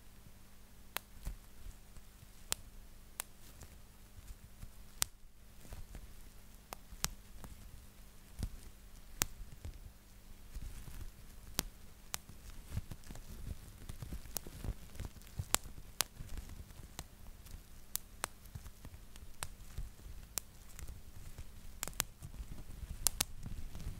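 Bubble wrap popped by hand, one bubble at a time: sharp single pops at irregular intervals, about one a second, with the plastic sheet crinkling and rustling between them, the handling heavier in the middle stretch.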